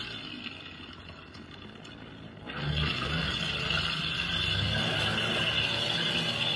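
Stihl KM56 two-stroke string trimmer engine running, eased back for about two seconds, then throttled up sharply about two and a half seconds in and held at high revs as the line cuts into grass.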